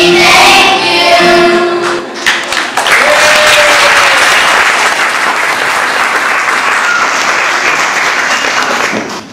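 A children's choir sings the last notes of a song, then the audience applauds for about seven seconds, the clapping cutting off just before the end.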